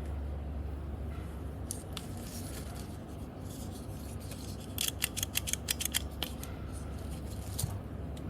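Slime and clay being worked by hand: about halfway through, a quick run of crisp clicks and snaps lasting about a second and a half, over a steady low hum.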